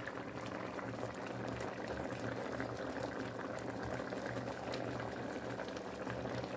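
A pot of curry chicken feet in thick curry sauce bubbling steadily at a boil, a continuous soft crackle and plop of bubbles.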